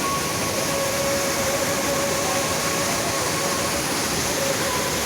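Waterfall roaring, a steady rush of falling water, with a faint held tone running through it.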